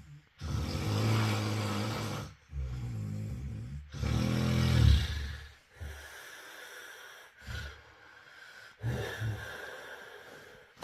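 A person snoring: a series of low-pitched snores, each lasting one to two seconds, with short quiet gaps between them. The snores are loudest in the first half and softer through the middle stretch.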